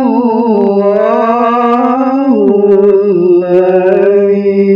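A male qori's voice in melodic Quran recitation. A drawn-out phrase wavers up and down in ornaments for about two seconds, then drops in pitch to a long held note.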